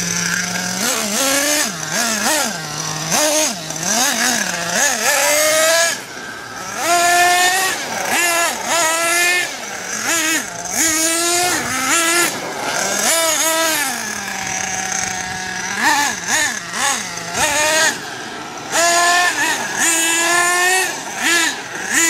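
Radio-controlled car's motor revving up and down in quick bursts as the car drives and accelerates. Its pitch rises and falls again and again, with a few short lulls.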